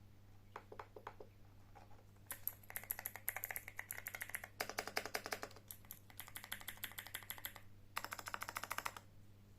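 Typing on a custom keyboard: a few scattered keystrokes, then a long run of rapid key clicks, a short pause, and a final fast burst about a second long.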